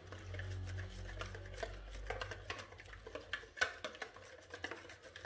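Small wire whisk beating a thick yogurt-and-spice marinade in a bowl: quiet, irregular clicks and scrapes of the wires against the bowl.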